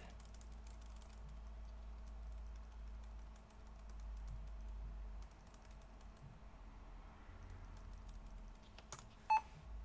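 Laptop keyboard keys being tapped over and over, faint clicks in quick runs with a sharper click near the end: the F2 / Delete key pressed during boot to get into the BIOS.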